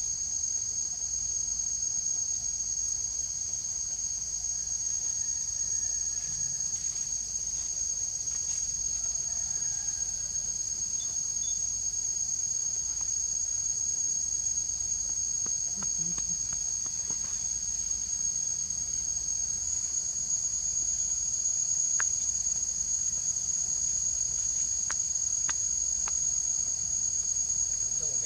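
Steady, high-pitched chorus of forest insects, unbroken throughout, with a few faint ticks here and there.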